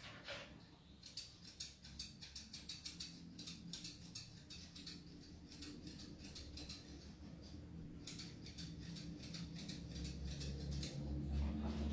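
Grooming scissors snipping dog hair around the muzzle in quick runs of faint, sharp snips, with a pause in the middle. A faint low hum comes up near the end.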